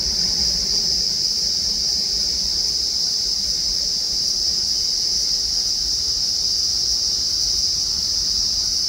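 Steady high-pitched drone of insects, unbroken throughout, over a fainter low rumble from the rear of a passenger train moving away.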